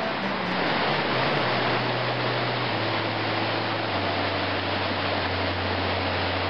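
Steady rush of flowing water, with a few slow, low music notes stepping downward underneath.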